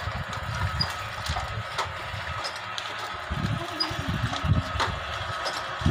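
Automatic double-die paper dona-making machine running, driven by a 1 HP motor: a steady mechanical hum with repeated short clicks and knocks from the pressing dies.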